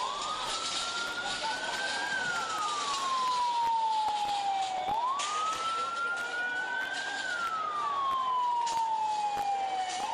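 Emergency-vehicle siren on a slow wail, rising and then falling in pitch about every five seconds, twice through, over a steady noisy background.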